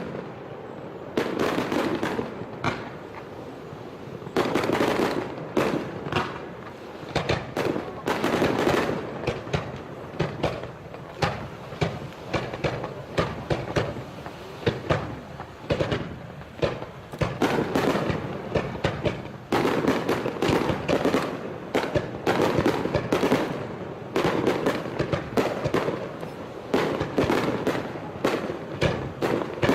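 Fireworks display in a rapid barrage, with many bangs overlapping continuously throughout and loud clusters every second or two.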